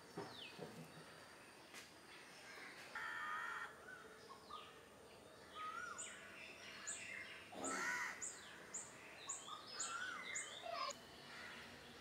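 Outdoor birdsong: several small birds chirping with quick falling whistles, busiest in the second half, and a harsh crow caw about three seconds in and again near eight seconds.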